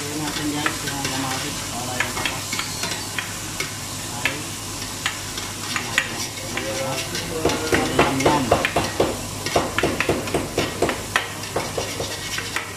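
Onions and tomatoes sizzling in a large metal stockpot while a metal ladle stirs and scrapes them, with repeated clinks of the ladle against the pot that come thick and fast in the second half.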